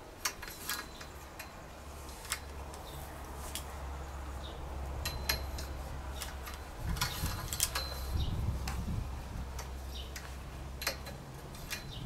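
Scattered sharp clicks and light clinks over a low steady hum.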